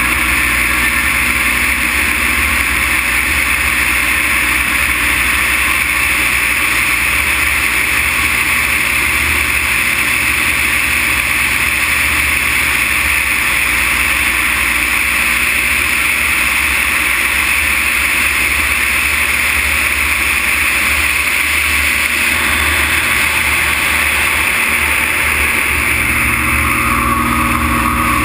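Extra 330 LC aerobatic plane's six-cylinder Lycoming engine and propeller running steadily in flight, mixed with loud wind rushing over a wing-mounted camera. Near the end the engine note changes as the plane rolls.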